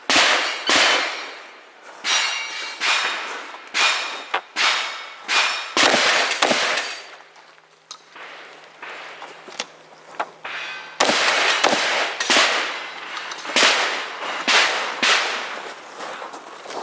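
Gunshots from a cowboy action shooting string, fired in quick succession at steel targets that clang and ring after the hits. The shots come about one every half second for the first six seconds, stop for about four seconds, then resume in another fast run.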